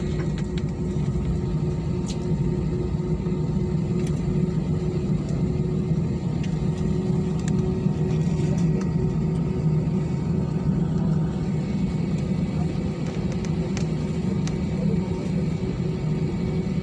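Cabin noise of an Airbus A320-family airliner taxiing, heard from inside the cabin: the jet engines' steady low rumble with a constant hum.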